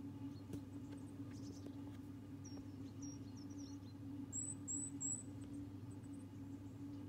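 Small birds giving thin, high-pitched chirps, with a quick run of three short very high calls about four and a half seconds in, over a steady low hum.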